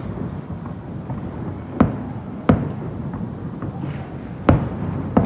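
Fireworks shells bursting: four sharp booms at uneven intervals over a steady low background rumble.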